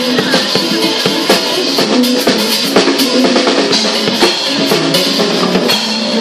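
Drum kit played along to a pop song's recording: a busy beat of bass drum and snare hits over the song's backing music.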